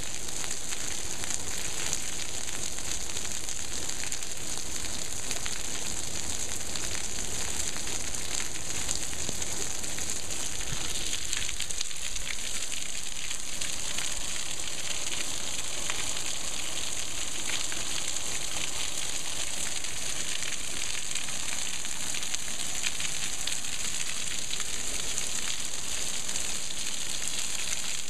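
Heavy monsoon downpour: a steady, dense hiss of rain falling on pool water, the concrete deck and roofs, with a fine crackle of individual large drops.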